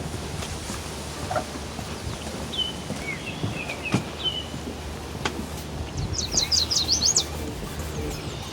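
Songbirds calling: a few short chirps about three seconds in, then a quick run of about eight high notes around six to seven seconds in, over a steady low background rumble with a few soft clicks.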